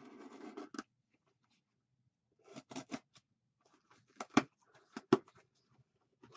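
A cardboard mailing box being opened by hand, with tape and cardboard scraping and rustling. Several short sharp scrapes and knocks follow, the loudest about four and five seconds in.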